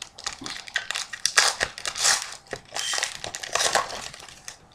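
Shiny foil trading-card pack wrapper crinkling and crackling in a run of bursts as it is handled and torn open by hand.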